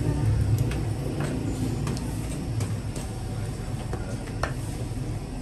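Steady low hum of bakery machinery, with scattered light clicks and taps over it.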